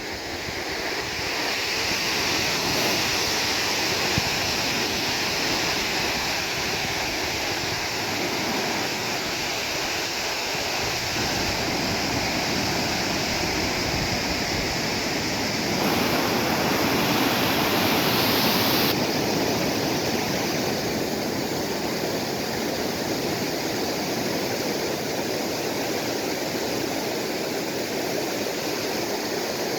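Mountain valley stream rushing over rocks, a steady even wash of water noise. For about three seconds a little past the middle it grows louder and brighter, then settles back.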